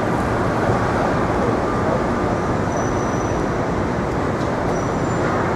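Steady roar of city street traffic, with a brief faint high squeal about halfway through.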